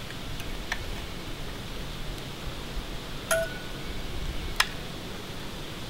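Metal caulking gun clicking a few times as its trigger is squeezed to push out clear caulk, one click ringing briefly like a clink, over a steady low hiss.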